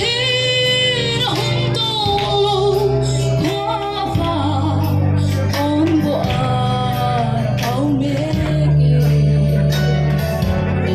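A woman sings a Mizo song into a microphone, amplified over instrumental accompaniment, holding long, sliding melodic notes.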